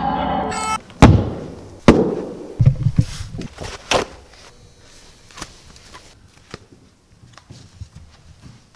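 Background music cuts off abruptly, then a person falls to a carpeted floor: two loud, sharp thuds about a second apart, followed by a few duller thumps and scattered knocks and rustling that die away.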